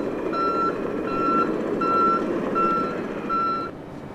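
KAMAZ 54901 tractor unit's reversing alarm beeping, five even single-tone beeps about one every three-quarters of a second, over the steady rumble of its six-cylinder turbo diesel as the truck backs up. The beeping and engine sound cut off abruptly near the end.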